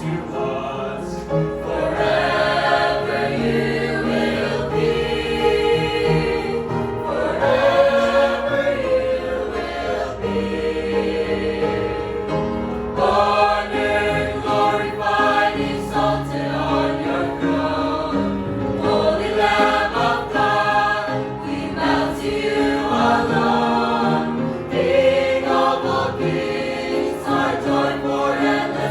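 Church choir singing a hymn, sustained notes moving in several parts.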